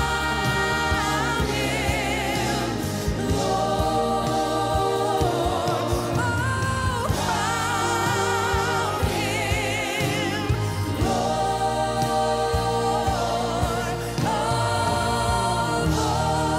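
Live gospel worship music: a lead singer and a group of backing singers sing long, wavering held notes into microphones, backed by a band.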